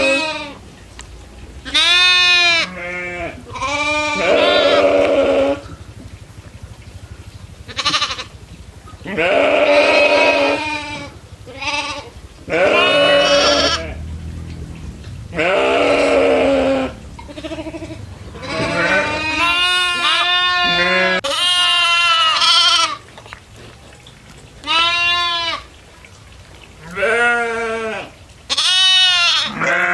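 Goats bleating again and again, a string of about fifteen wavering calls of one to two seconds each, at different pitches, with short pauses between them.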